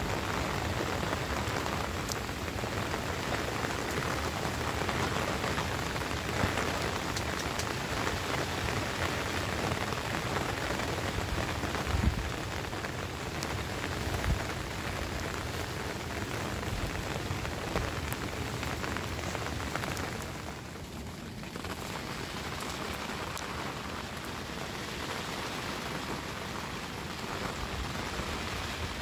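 Heavy rain falling steadily, with scattered drop hits. A sharp knock comes about twelve seconds in and a smaller one two seconds later.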